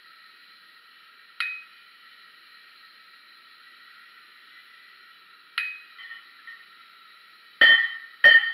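Hand hammer striking a curved chisel on a red-hot 3 mm steel flower blank on an anvil, cutting veins into the petals: a single ringing strike about a second and a half in, another with a couple of light taps after it about two-thirds through, then two loud ringing blows near the end. A faint steady hiss runs underneath.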